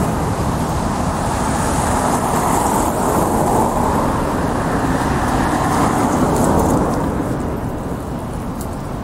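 Steady city street traffic noise from passing vehicles, swelling over the first few seconds and easing off near the end.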